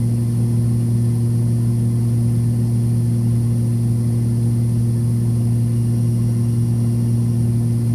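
Steady drone of a Cessna 340's twin turbocharged six-cylinder piston engines and propellers, heard from inside the cabin in level cruise. A deep, even hum that does not change.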